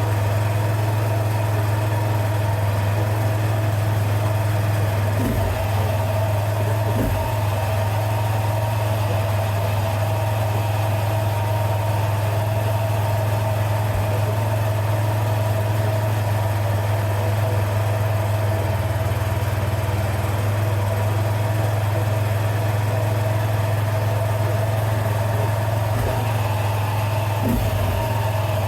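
2007 Arctic Cat H1 650 ATV's single-cylinder four-stroke engine idling steadily, its idle set slightly higher to cure a tick from the carburettor area. A few soft low knocks come and go over the idle.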